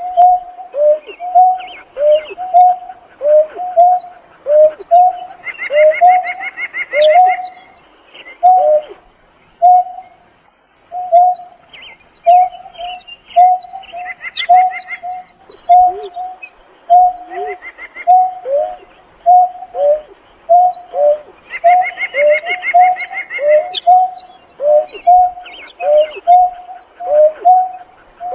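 Greater painted-snipe giving a long series of low hooting calls, one or two a second, each note dropping in pitch at its end and often coming in pairs. A higher, rapidly pulsing trill breaks in over them in several short spells.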